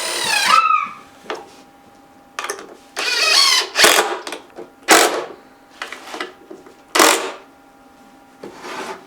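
Cordless power drill run in a series of short trigger bursts, its motor whining up and down in pitch with each burst; a faint steady hum lies underneath.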